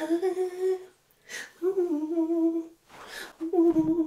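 A woman humming a tune in short held notes, about one every second and a half, with brief hissy sounds between them.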